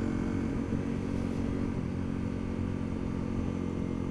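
Honda CRF250L's single-cylinder four-stroke engine running steadily under way, the engine note holding at one pitch.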